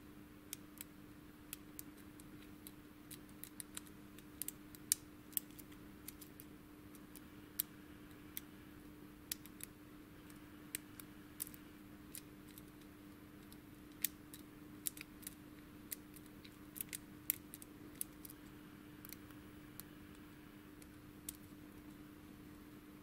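Light, irregular metallic clicks and ticks of a hook pick working the pins of a Thirard high-security euro cylinder under a tension wrench, as it is picked pin by pin. A faint steady low hum runs underneath.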